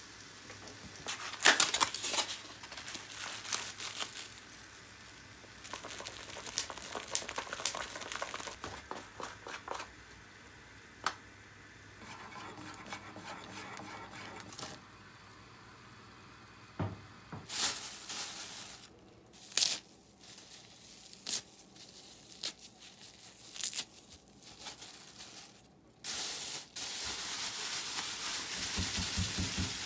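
Kitchen food-preparation sounds: crinkling and tearing, like plastic wrap or food packaging being handled, mixed with scattered clicks and knocks of utensils. A steady hiss starts near the end.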